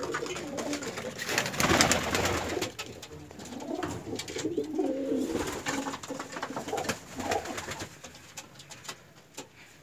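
Domestic pigeons cooing in a small loft, in low warbling phrases that come and go. A loud rustle about two seconds in, with scattered light clicks.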